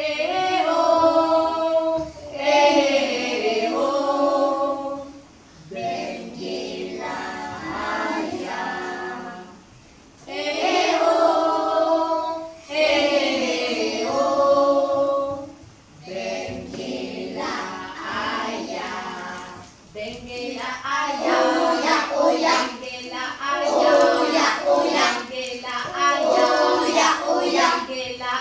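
Group of young children singing unaccompanied in French, in sung phrases with short pauses between them; the phrases get quicker and shorter in the last third.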